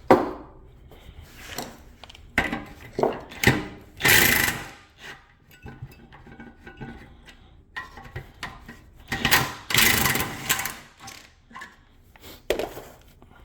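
Two hissing bursts from an aerosol can spraying the brake caliper mounting bolts, a short one about four seconds in and a longer one about nine seconds in, with scattered clicks and knocks of metal parts being handled between them.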